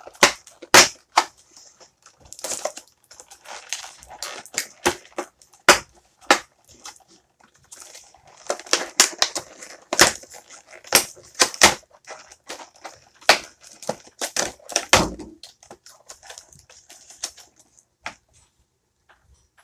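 Plastic action-figure packaging being handled: crinkling with many irregular sharp clicks and snaps, dying away a couple of seconds before the end.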